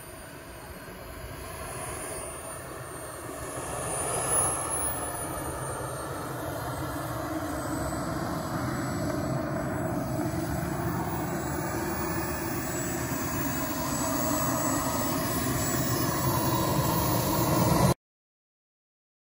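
Turbine engine of a Sebart Avanti S 2.2 m model jet running as it taxis: a steady rush with a high whine above it, growing louder as the jet comes closer. The sound cuts off suddenly just before the end.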